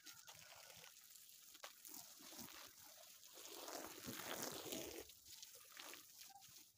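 Faint splashing of water spurting from a break in a black plastic water pipe onto the grass, growing louder about four seconds in.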